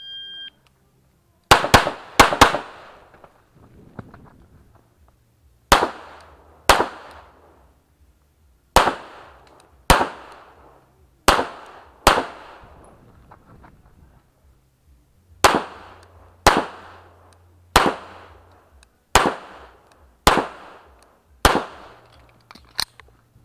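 A shot timer's short start beep, then a Tanfoglio pistol firing about seventeen shots, in quick pairs and short strings with brief pauses between them as the shooter moves from target to target; the last shot is fainter.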